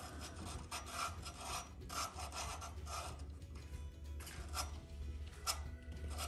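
Repeated rasping strokes of something being scraped or rubbed back and forth by hand, about two a second, over a steady low hum.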